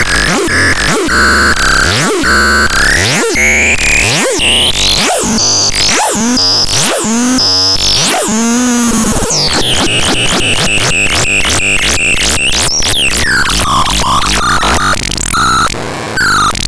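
Synthesizer making noisy electronic tones that sweep up and down in pitch over a rough, pulsing buzz. About ten seconds in, the sound changes to a faster buzzing pulse with high falling tones.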